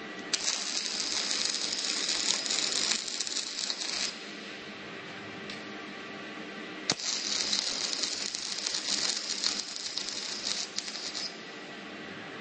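Automatic arc welding: two welds of about four seconds each, dense high crackling that starts and stops abruptly, with a steady machine hum between and after them.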